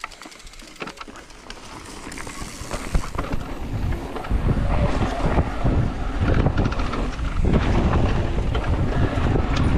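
Wind buffeting the microphone and mountain-bike tyres rumbling over a dirt trail as the bike picks up speed downhill. It grows steadily louder over the first four or five seconds, then holds, with scattered clicks and rattles from the bike.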